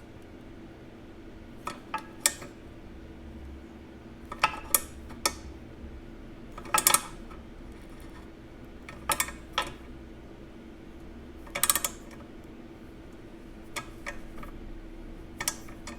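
Small metal clinks and taps, in irregular groups every second or two, from hand tools and a screw extractor being worked on a broken screw in the bandsaw's cast housing, over a steady low hum.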